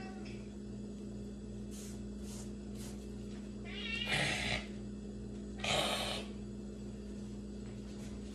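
Shredded cheese being scraped off a cutting board into a pan of cheese sauce: short rustling scrapes, the loudest about four seconds in and just before six seconds, over a steady low hum. A brief meow-like rising call comes just as the first loud scrape begins.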